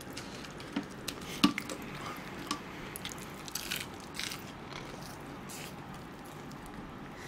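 A man biting and chewing fried chicken, with irregular crisp clicks and wet mouth smacks. The sharpest is about a second and a half in.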